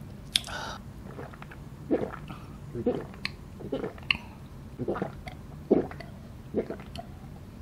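Close-miked mouth sounds of a person finishing a mouthful of cheese kunafa and then drinking from a glass jar: separate wet chewing and swallowing noises every second or so.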